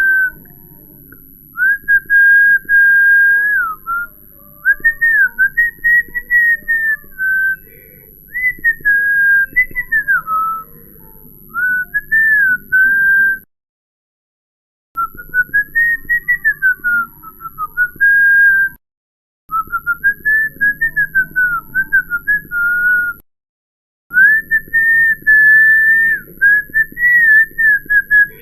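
A person whistling a wandering melody in short phrases, the single pure note sliding up and down. It cuts off suddenly into dead silence three times, the longest about a second and a half.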